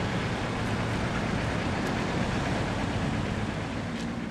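Steady rushing outdoor noise with a low rumble, starting to fade near the end.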